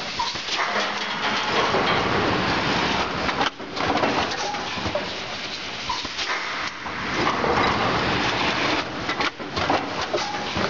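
Four-cavity bottle blowing machine running: a loud, continuous hissing and clattering with scattered clicks, dipping briefly twice.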